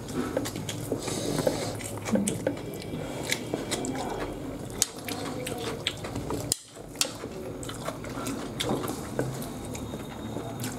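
Eating with the hands: chewing, with scattered small clicks and rustles of fingers working biryani rice on paper plates and dipping into chutney.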